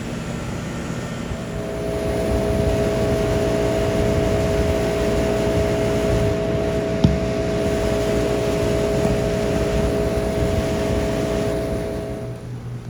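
Outdoor air-conditioning condenser unit running: a steady hum with a fan rumble, its tone growing louder about two seconds in and fading near the end, with a single click about seven seconds in.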